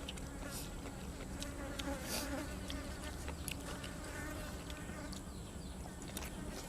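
A flying insect buzzing, its drone coming and going, over a steady low hum with scattered small clicks.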